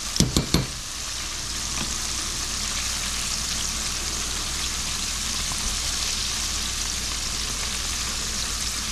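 Frog legs deep-frying in hot oil, a steady sizzle, with a few light knocks in the first half-second.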